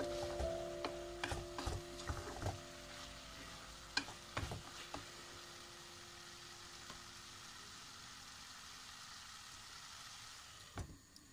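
Wooden spatula stirring and scraping chicken and vegetables in a pot, with sharp knocks against the pot in the first few seconds and again about four seconds in, over a steady sizzle of frying that carries on after the stirring stops. A single knock near the end.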